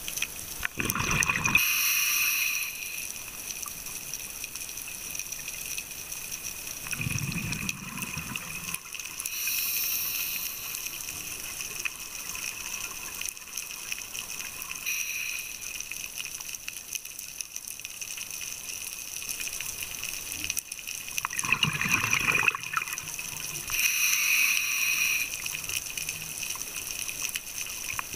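Scuba diver breathing underwater through a regulator: slow cycles of a hissing inhale and a low, gurgling burst of exhaled bubbles, each a few seconds apart.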